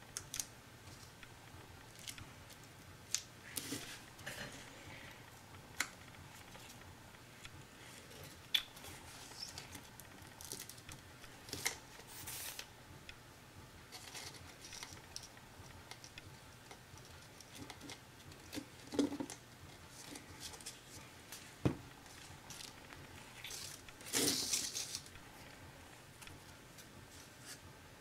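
Hands handling cardboard and paper craft pieces on a table: scattered light clicks, taps and short rustles as pieces are pressed down and moved, with a sharper tap about three-quarters through and a longer rustle soon after.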